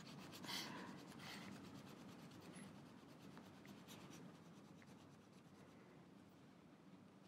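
Faint scratching and rubbing as a fusion splicer electrode's tip is pushed and twisted in an abrasive electrode cleaning disc, scraping oxidisation off the tip. It is a little louder in the first second or so, then fainter.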